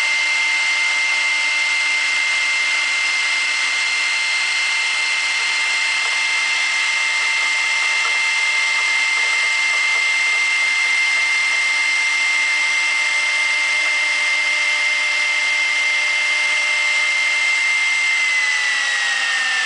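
CNC router spindle (1.7 kW, 18,000 rpm) whining steadily as its 8 mm cutter mills a circular cut through PVC sheet. About eighteen seconds in, the whine starts to fall in pitch as the spindle slows.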